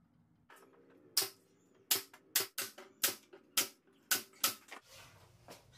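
Nail gun firing brads through a plywood panel into a wooden frame: about eight sharp shots, roughly one every half second.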